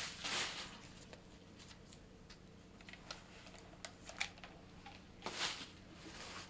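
Faint handling sounds from a painted canvas being moved and set down: two soft rustles, about half a second in and near the end, with scattered light clicks and taps between.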